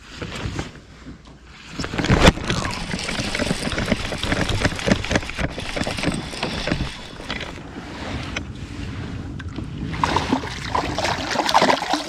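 A hooked fish fought up to the side of a kayak: water splashing and sloshing against the hull, with the baitcasting reel being cranked and rough rustling close to the microphone. The noise picks up about two seconds in and again near the end, as the fish thrashes at the surface.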